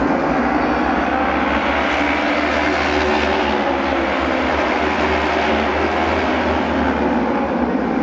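Auto race motorcycles running at racing speed on the oval, a dense engine howl that swells about three seconds in as the pack passes and then holds steady.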